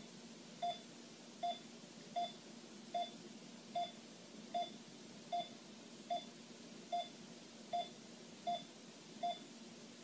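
Electronic 'heartbeat' beep: one short mid-pitched tone repeating steadily about every three-quarters of a second, at a heartbeat pace of roughly 78 a minute, over a faint low hum.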